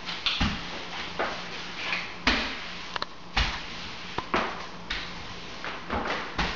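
Floor-finish applicator pad on a long pole sweeping back and forth over sanded bare hardwood as polyurethane is spread, a scrape-like swish about once a second. Several sharp knocks come from the pad head and pole striking the floorboards.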